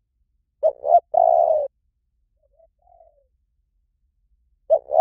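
A dove cooing. A loud phrase of two short coos and a longer drawn-out coo comes about a second in, followed by a soft, quieter pair of notes, and the loud phrase starts again near the end.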